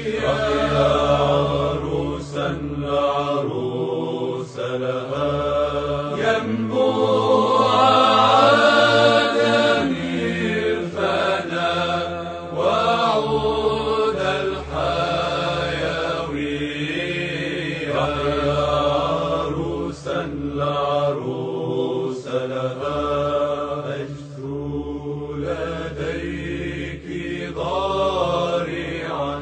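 Chanting: voices sing a slow melody with long held and gliding notes over a low held drone that shifts pitch every few seconds.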